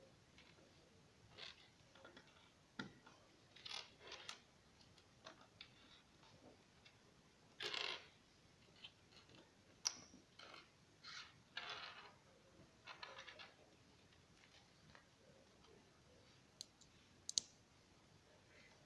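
Plastic Lego bricks clicking and scraping against each other as a small Lego model's pieces are handled, faint and irregular. The longest scrape comes about eight seconds in, with sharp clicks near ten and seventeen seconds.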